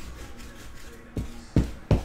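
Cards and supplies being handled on a tabletop: three sharp knocks in the second half, the last two the loudest, over faint background music.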